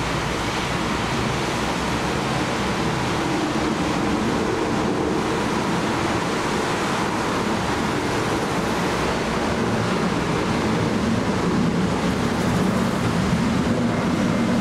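Jet engines of a Boeing 737 climbing out overhead: a steady, broad roar that grows a little louder toward the end.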